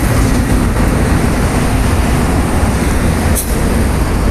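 Steady rumble of road traffic, with a brief click about three seconds in.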